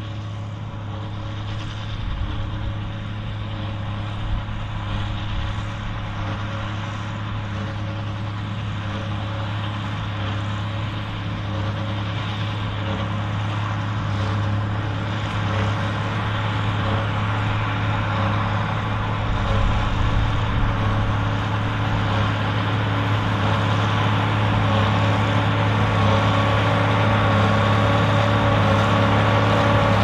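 Ford TW30 tractor's turbocharged six-cylinder diesel engine running steadily under load while driving a New Holland 4860S large square baler, the engine drone growing gradually louder as the tractor comes closer.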